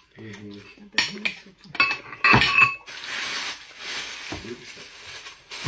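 Short clinks and knocks of tableware on a table, several in the first three seconds, the loudest and most ringing about two and a half seconds in.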